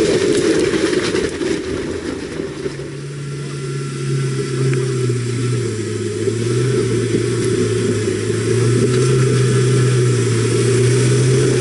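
Off-road 4x4 pickup engines running at low revs on a rocky climb. From about two and a half seconds in, a steady engine note drifts a little up and down as another vehicle crawls closer.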